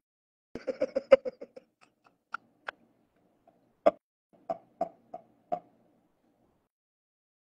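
A man laughing hard, mostly breath: a quick run of short bursts about half a second in, then single gasping bursts spaced out over the next few seconds.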